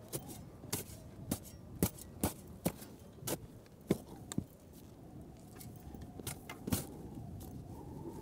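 Footsteps on dry, gravelly desert ground: sharp crunching steps about twice a second, stopping briefly after about four and a half seconds, then a few more.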